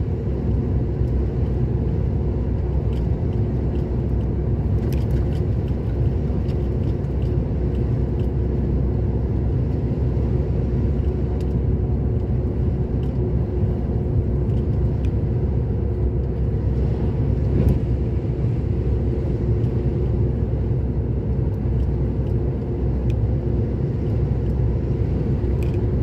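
Engine running steadily with low road rumble, heard from inside a moving vehicle at a constant cruising speed.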